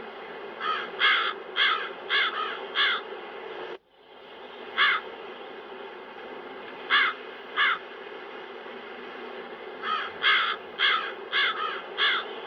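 Crows cawing in bursts: a quick run of about six caws, then single caws spread apart, then another run of about six near the end, over a steady wind background. The background drops out abruptly for a moment a little under four seconds in.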